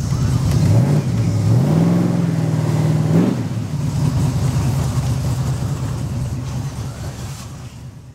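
Car engine accelerating, heard from inside the cabin: the revs climb about a second in, dip, climb again and hold, then drop back to a steady cruise that fades out near the end.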